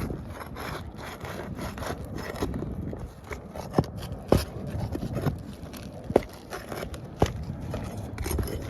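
Scraping and rubbing against asphalt roof shingles, with four sharp knocks or clicks in the middle stretch.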